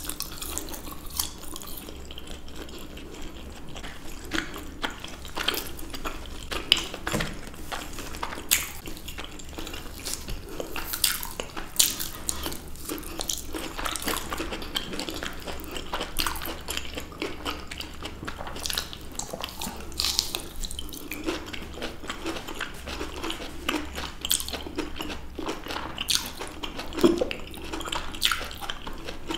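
Close-miked eating sounds of two people biting and chewing juicy fresh fruit, blood orange segments among it, with many short sharp wet clicks and smacks.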